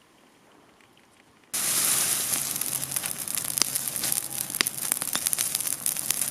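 Wood bonfire crackling and hissing, with many sharp pops. It starts abruptly about a second and a half in; before that there is only a faint background.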